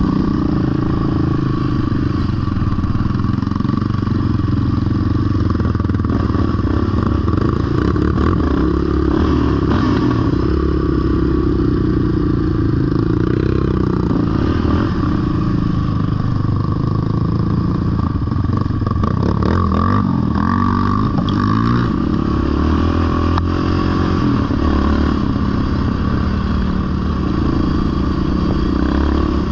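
ATV engine running under throttle on a dirt trail, its pitch rising and falling as the rider works the throttle, with some rattle from the machine over the rough ground.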